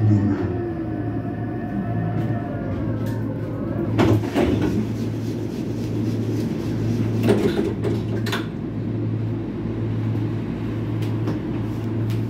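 Inside a moving Bombardier Flexity Outlook tram: a steady low hum and rolling rumble, with a few sharp knocks about four, seven and eight seconds in.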